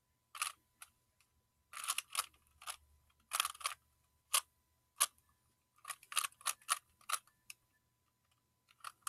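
Plastic Rubik's-brand Rubik's Cube being twisted by hand: runs of sharp clicks and clacks as the layers turn, with short pauses between runs.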